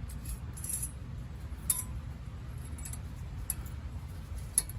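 Light metal clicks and clinks, a few separate ones, as new brake pad hardware clips are fitted onto a disc brake caliper bracket. A steady low rumble runs underneath.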